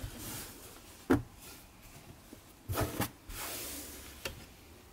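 Soft cloth rustling as folded cloths are laid and pressed into an open drawer, with a few light knocks against the drawer: one about a second in, two close together near three seconds and one near the end.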